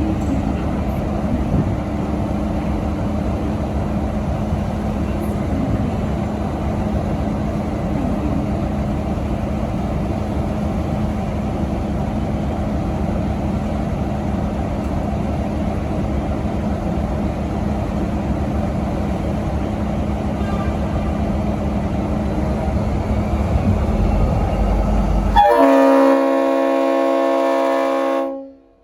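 V/Line N class diesel locomotive's EMD 645 V12 engine running with a steady low drone as the train pulls out. Near the end, a Leslie RS5T five-chime horn sounds its chord loudly for about three seconds, then cuts off abruptly.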